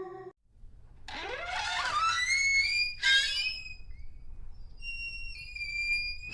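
Synthetic horror sound effects. About a second in, a pitched swoop rises over two seconds, and a shorter swoop follows near three seconds. Thin, high, steady whistle-like tones hold through the last second and a half.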